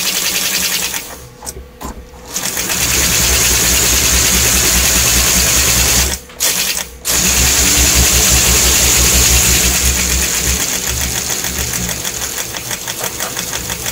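Electric motor and gearing of a 1947 American Flyer #312 S-gauge steam locomotive running under power with a steady, fast mechanical whirr. It stops briefly twice, about a second in and again about six seconds in, and starts up again each time.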